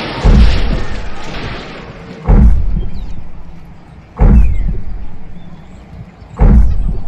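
Four heavy booming thuds about two seconds apart, each dying away slowly: the stomping footsteps of a giant, the Stay Puft Marshmallow Man.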